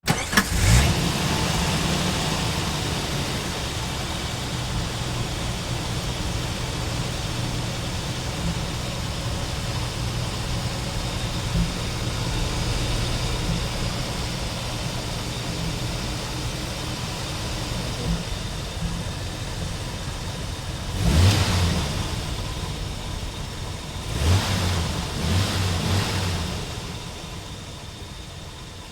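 Jeep engine starting and settling into a steady idle, then blipped several times in short revs in the last third.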